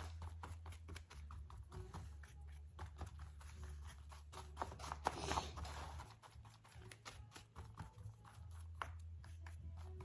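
Faint rustling and small taps of a paper napkin being handled, with a louder rustle about halfway through. A steady low hum runs underneath and drops out for a couple of seconds past the middle.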